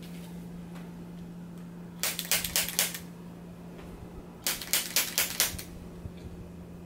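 Handheld chiropractic adjusting instrument firing at the jaw joint in two quick bursts of clicks, each about a second long with six or seven clicks. A faint steady hum runs underneath.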